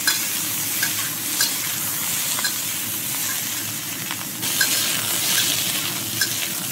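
Asparagus sizzling in hot oil in a carbon steel wok as it is stir-fried with a metal spatula, with light clinks of the spatula against the wok now and then. The sizzle gets louder about halfway through.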